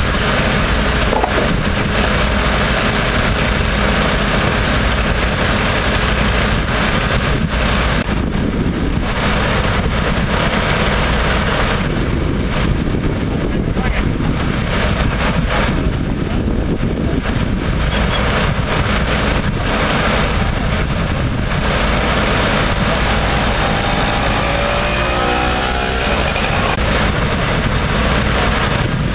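Engine of a Holmatro hydraulic rescue power unit running steadily, powering the hydraulic cutting and spreading tools during an extrication.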